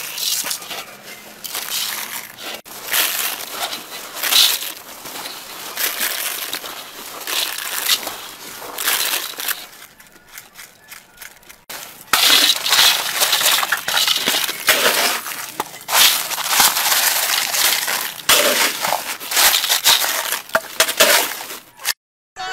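Crushed ice crunching and rattling as handfuls are scooped and scattered over plastic cups packed in a metal basin. After a short quiet stretch near the middle, more crushed ice is tipped and shaken out of a metal bowl.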